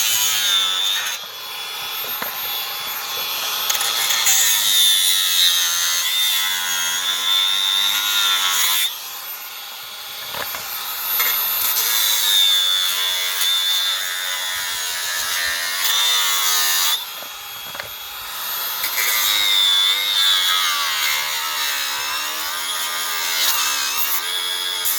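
Handheld electric power tool cutting into a chainsaw's housing, its high motor whine sagging and recovering as it bites. It runs in three long stretches, easing off briefly twice.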